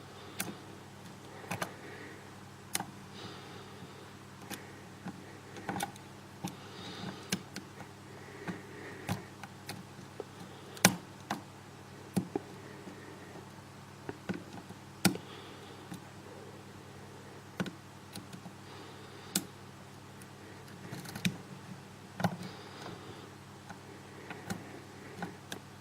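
Dimple-lock pick and tension wrench working the pins of an LTC cutaway 7-pin dimple lock: scattered light clicks and small scrapes at irregular intervals, roughly one every second or two, as pins bind and are set or clicked out, with a few sharper clicks near the middle.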